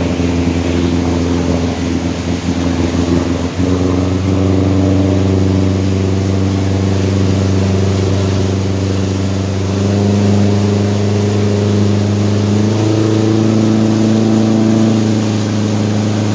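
Motorboat engine running steadily while towing, its note stepping up in pitch about three and a half seconds in and twice more later. The wake's rushing water sounds underneath.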